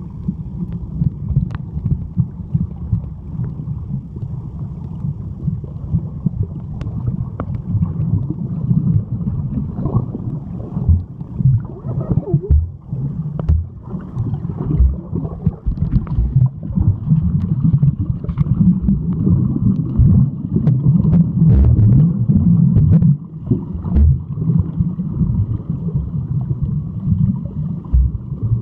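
Muffled underwater noise picked up by a submerged camera: a steady low rumble of moving water with scattered small clicks and pops.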